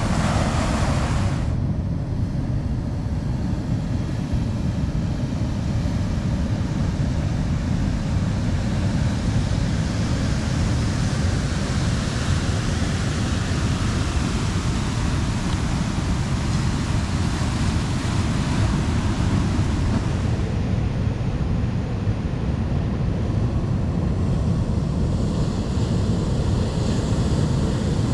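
Surf breaking and washing up onto a boulder beach, with wind rumbling on the microphone: a steady wash of noise whose tone shifts abruptly a few times.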